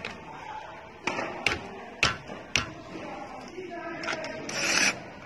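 Hands handling an electric scooter's rear light housing and cables: four sharp clicks and knocks of hard plastic and metal parts within about a second and a half, then a short rustle near the end. Faint voices in the background.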